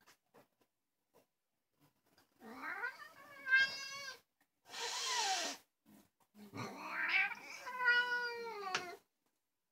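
A house cat meowing in drawn-out calls. The first long meow comes about two and a half seconds in, followed by a short breathy sound. A longer, wavering meow starts at about six and a half seconds and falls in pitch at the end.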